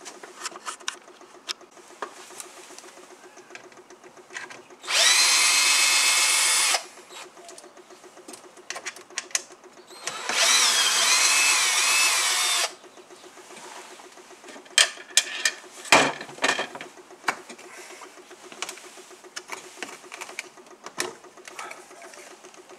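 Cordless electric screwdriver with a Torx T20 bit running in two bursts of about two seconds each, backing out the two screws that hold the front plate of a Tesla Wall Connector; the whine wavers in pitch during the second burst. A few sharp clicks and knocks follow from handling the charger's cover.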